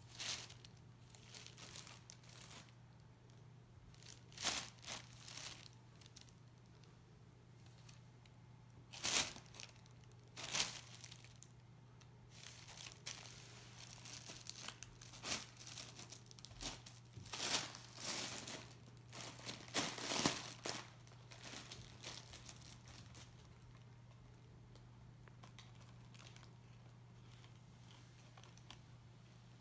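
Thin plastic air-pillow packing bag crinkling in short irregular bursts as a cat bites and pulls at it, over a faint steady hum.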